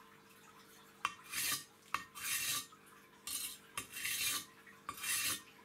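The edge of a steel deba knife scraped along a concrete block in about five grinding strokes, starting about a second in, each opening with a click as the blade meets the block. The strokes are grinding the knife's chipped, wavy edge flat.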